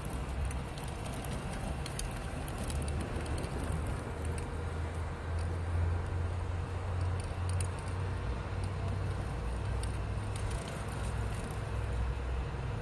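All-terrain four-wheel-drive electric scooter riding over rough ground: a steady low rumble with scattered light rattles and clicks.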